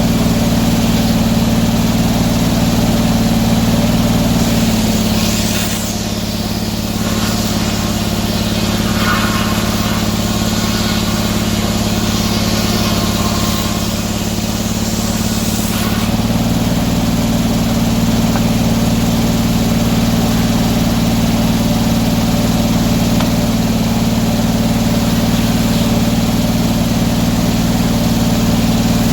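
An engine running steadily. From about five seconds in its pitch sags slightly for roughly ten seconds, then comes back up to its earlier speed.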